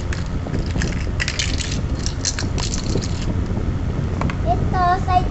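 Crinkling, rustling handling noise as a plastic toy kitchen playset and its pieces are handled, in short clusters over the first three seconds, over a steady low rumble. A child's high, sing-song voice comes in briefly near the end.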